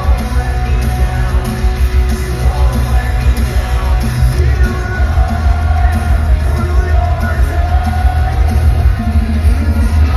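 Loud live rock band playing with heavy, pounding bass and drums, a vocalist singing and yelling over it.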